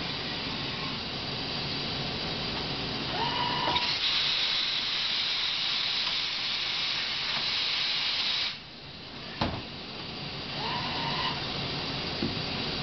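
Hitachi HiCell CH250 CNC turn-mill machine running a part transfer: a steady hiss, with brief servo whines rising and falling twice as the axes move. A louder hiss starts about four seconds in and cuts off abruptly after eight seconds, followed by a single sharp clunk.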